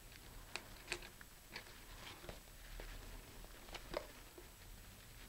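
Faint handling noises from a cardboard rocket body tube as rivets are pushed back in through it into the altimeter bay: a handful of short, scattered clicks and scuffs, the sharpest about a second in and near four seconds in.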